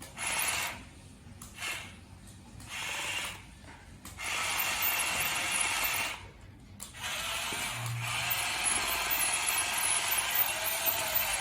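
Geared electric motors of radio-controlled toys running with a rattling gear sound, in short stop-start spells at first, then steadily from about seven seconds in.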